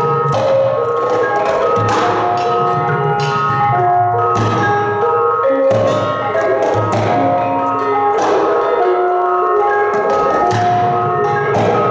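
Gamelan ensemble playing: bronze kettle gongs and metallophones struck in a steady stream of ringing notes, with low drum strokes underneath.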